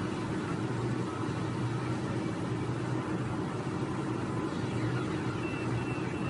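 Steady low engine hum heard from inside a car's cabin.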